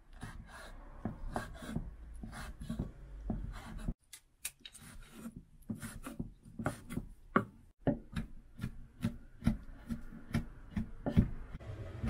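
Kitchen knife chopping kumquat on a wooden cutting board: an irregular run of blade knocks on the board, a few a second.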